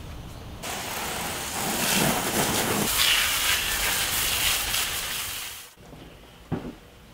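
Dry concrete mix sliding and pouring out of a tipped plastic wheelbarrow: a steady hiss lasting about five seconds that stops suddenly. A single short knock follows near the end.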